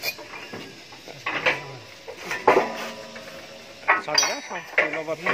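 Steel parts of a mobile concrete hollow block machine's mould and frame clanking and clinking as they are handled: several separate metal strikes, each with a short ring.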